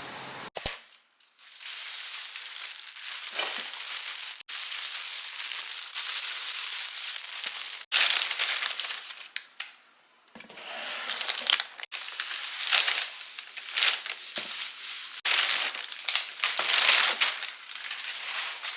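Plastic grocery packaging crinkling and rustling as it is handled, in several short stretches that break off abruptly at edit cuts.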